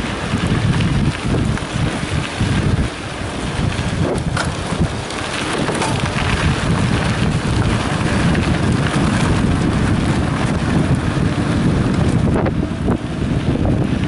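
Wind buffeting the microphone of a camera riding along on a mountain bike, with tyres crunching over a gravel road and a few sharp knocks and rattles as the bike goes over bumps.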